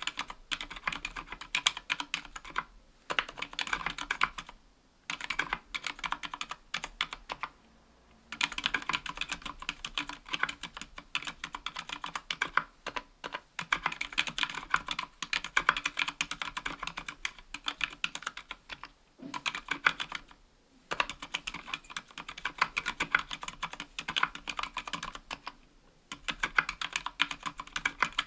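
Steady typing on a 60% aluminium-plate mechanical keyboard with Gateron Silent Black Ink linear switches and GMK keycaps: quick runs of soft, damped keystrokes, with brief pauses between bursts.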